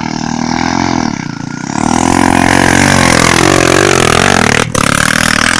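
Dirt bike engine revving hard on a dirt track, its pitch rising about two seconds in and then wavering up and down, with a brief break near the end.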